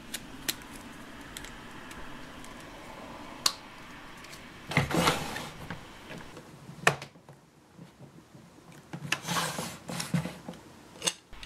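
Hard plastic toy parts being handled and snapped together: a few sharp clicks, and two longer bouts of plastic rubbing and scraping, one near the middle and one near the end.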